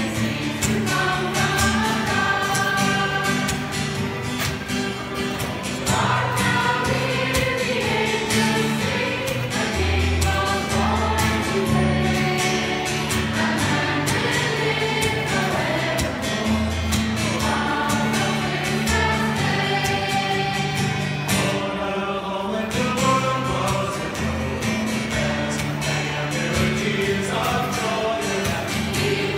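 Mixed folk choir of adults and children singing a Christmas song together, accompanied by an acoustic guitar.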